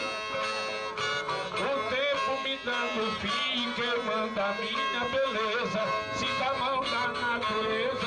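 Two Brazilian ten-string violas played together, plucked and strummed in a steady instrumental interlude between the sung verses of a repente.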